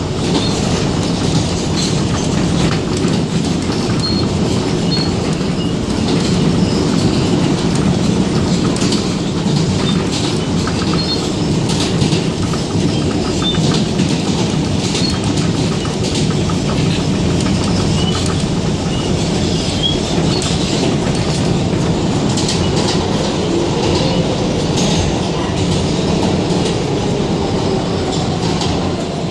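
R160B Siemens subway car running at speed through a tunnel, heard from inside the car: a steady rumble of wheels on rail with clickety-clack over the rail joints, and a faint whine sliding in pitch near the end.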